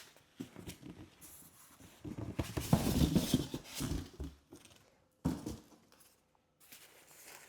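Cardboard box and packing material being handled and opened: irregular rustling, scraping and light knocks, busiest for a couple of seconds in the middle, with one sharp knock a little after five seconds in.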